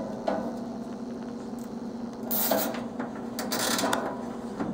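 Nylon cable tie being pulled tight around a sheet-metal bracket, with two short zipping rasps about two and a half and three and a half seconds in. Light clicks of handling come between them, over a steady low hum.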